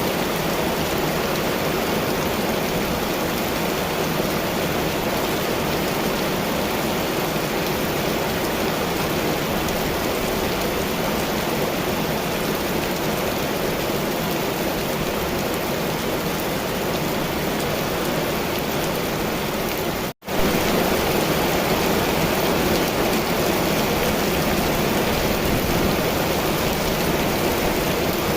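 Heavy rain pouring steadily in an even hiss. About twenty seconds in it drops out for a split second and comes back slightly louder.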